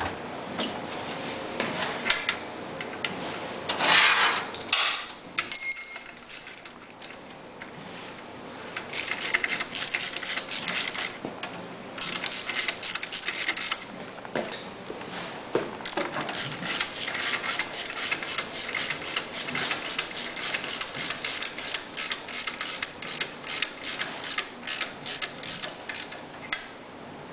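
Ratchet wrench clicking in fast, even strokes as the generator rotor's center bolt is run in, after a few metal knocks and a short metallic ring near the start.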